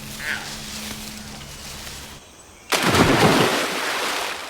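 A big splash as a monkey drops into a river, sudden and loud, then washing away over about a second and a half. A short faint call comes just before, near the start.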